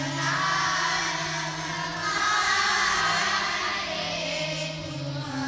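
Devotional bhajan music: singing over a steady low drone, with no break.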